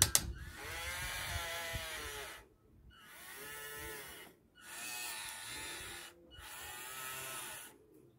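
Electric motors and gearboxes of a remote-control CAT 320D model excavator whining in four short runs, each speeding up and then slowing down as the transmitter stick is pushed and released. A sharp click comes at the very start.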